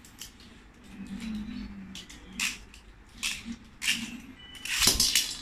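Sharp plastic clicks as a Beyblade top is fitted to its ripcord launcher, then, near the end, a loud rasping zip as the ripcord is pulled and the top is launched into an aluminium wok, where it spins with a steady high whine.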